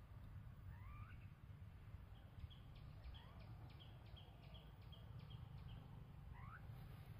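Faint birds calling: a few quick rising whistles and a run of about ten short, evenly spaced high notes, over a low rumble.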